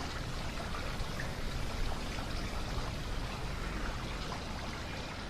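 Steady, even rushing background noise, like running water, with no distinct events.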